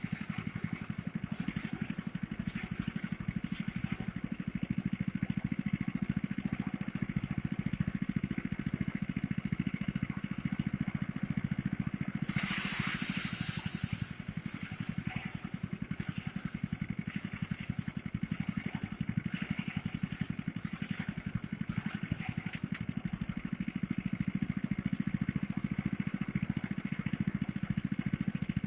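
Small engine of a motorised rice thresher running steadily, with a harsh hissing rush lasting about two seconds near the middle.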